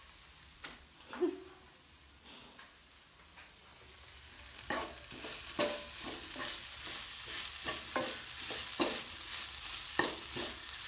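A few light knocks, then about four seconds in a pan of cabbage stir-fry starts sizzling loudly as it is stirred, with a utensil knocking and scraping against the pan once or twice a second.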